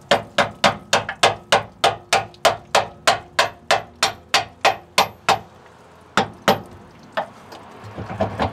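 Hammer striking a screwdriver used as a punch, in quick even blows about four a second. The blows break off about five seconds in, then a few slower, spaced blows follow.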